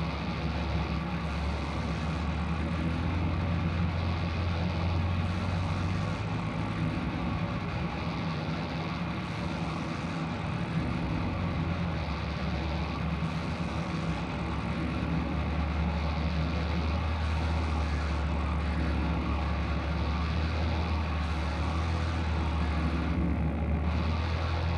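Experimental noise music from a live improvisation: a steady low drone under a dense wash of noise, with a few tones held throughout.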